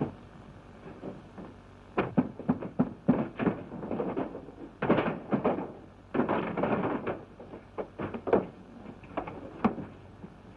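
A sharp bang right at the start, then from about two seconds in a quick run of knocks, thumps and scuffling: a fistfight in a wooden office, bodies and furniture banging about.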